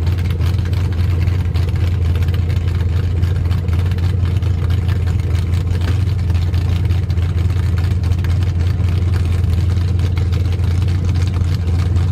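Inboard-powered bowrider's engine idling at the dock, a steady low-pitched drone that does not change.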